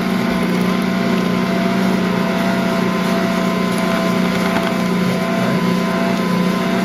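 Ankarsrum Assistent Original stand mixer running steadily at a medium speed, its motor turning the steel bowl so a wet flour-and-water dough churns against the roller and scraper. A constant motor hum with faint steady whining tones above it.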